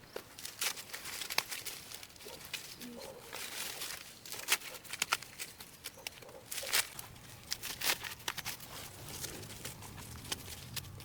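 Irregular crackling and rustling of dry vegetation, a scatter of short snaps and crinkles at an uneven pace.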